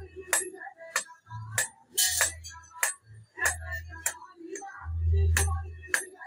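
Hand hammer striking red-hot iron on a steel anvil, about a dozen sharp, ringing clanks at roughly two a second in an uneven rhythm, as a khurpa blade is forged.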